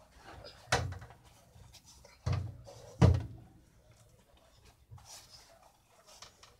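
Three dull knocks in the first three seconds, the last the loudest, as a metal baking tray is bumped against a countertop while flatbread wraps are pressed and rolled in it, with faint handling sounds between.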